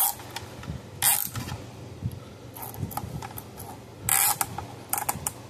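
A thick black nylon zip tie being pulled tight through its locking head, ratcheting in short pulls about a second in and again about four seconds in, with light clicks between.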